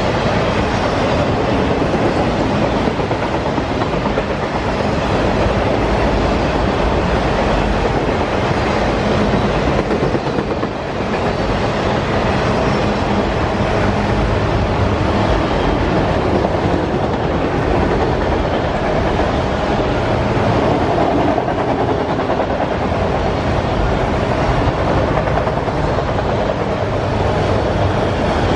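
Autorack freight cars rolling past: a steady rumble and rattle of steel wheels on rail, with clickety-clack over the rail joints.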